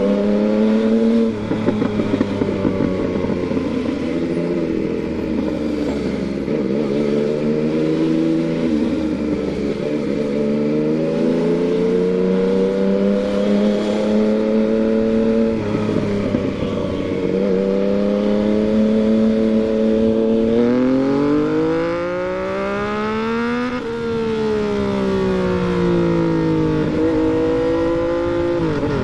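Yamaha MT-09's inline three-cylinder engine running under riding load, the revs rising and easing off as the throttle and gears change. Late on, the revs climb steadily for a few seconds, then fall away and drop sharply.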